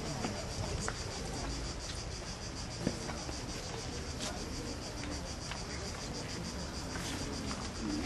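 Insects chirring steadily outdoors in a fast, even pulse, over general background noise, with a single brief tap about three seconds in.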